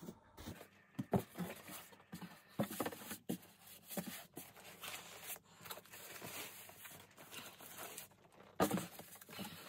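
Cardboard boxes being handled: a long inner box lifted and slid against a larger shipping box, with rustling, scraping and scattered knocks, and a louder knock near the end.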